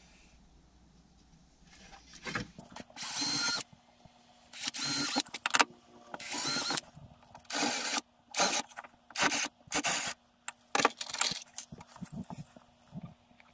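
Cordless drill run in about nine short bursts, each a second or less, working into pine blocks.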